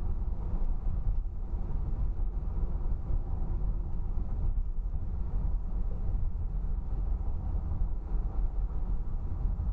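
Steady road and engine noise inside a moving car's cabin, heavy in the low end and even throughout.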